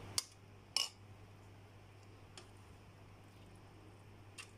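Metal spoon clicking twice against a stainless steel tray as rice stuffing is pushed into a raw chicken leg, then a couple of faint handling ticks over a low steady hum.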